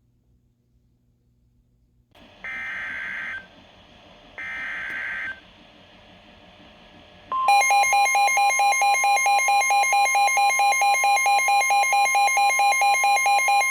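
Emergency Alert System alert opening: two short, harsh, screechy digital data bursts of the SAME header, each about a second long, then a loud steady attention tone starting about seven seconds in. These signal that a new weather warning is about to be broadcast.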